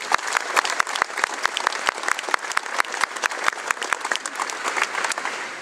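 Applause from a crowd, many hands clapping at once, dying away near the end.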